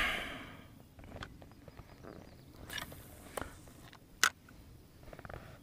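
Faint clicks and rustles of hands handling a spinning rod, reel and line, with one sharper click about four seconds in.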